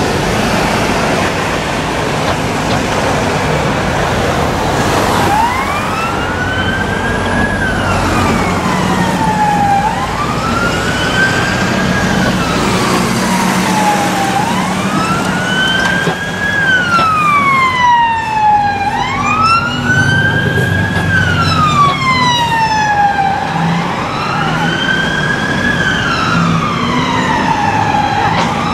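UK police car siren on a slow wail: a quick rise and a slower fall in pitch, repeating about every four and a half seconds over busy city traffic. It starts about five seconds in.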